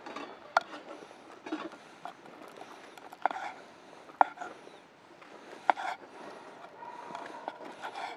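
Several sharp clicks and knocks, a second or so apart, over low background noise. A faint steady tone comes in near the end.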